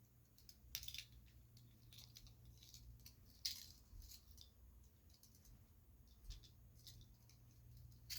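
Faint metallic clicks and rattles of handcuffs being worked with a key to unlock one cuff, a few sharp clicks scattered through, over a low steady hum.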